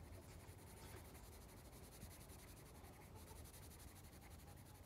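Faint scratching of a pencil shading on sketchbook paper, over a low steady background rumble.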